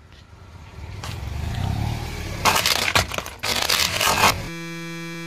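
Car tyre rolling over a plastic toy fire-rescue truck, the plastic body cracking and snapping in a run of loud cracks over the car's low rumble. A steady hum comes in near the end.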